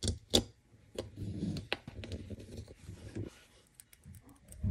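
Sharp clicks and light handling noise of small metal parts as M3x6 screws are set and driven with a hex screwdriver into the metal frame of a 3D printer bed. The clicks come several times in the first two seconds.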